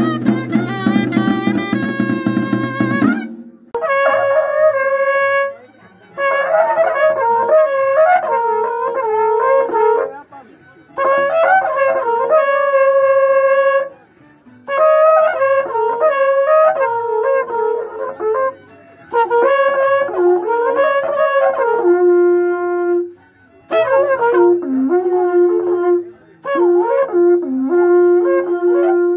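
A small flute with a large drum plays for the first three seconds, then cattle-horn trumpets (waqrapuku) are blown in a string of long held phrases, each a few seconds long, with short breaths between them.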